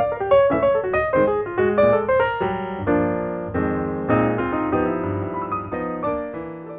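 Background piano music: a quick run of single notes, then held chords that slowly grow quieter.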